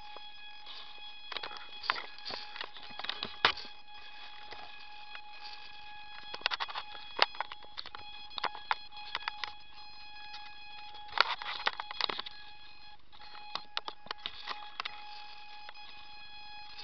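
A steady, high electronic whine with overtones, picked up by the onboard camera of an RC model plane, with scattered clicks and knocks as the model is carried and handled on the ground.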